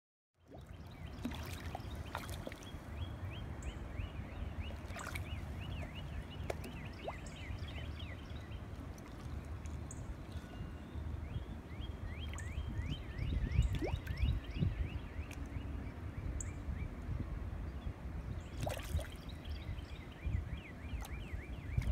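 Waterside ambience: a steady low rumble with faint lapping and dripping of water around a dog wading in shallow water, and a few small clicks. Runs of quick falling chirps, several a second, come and go for a few seconds at a time.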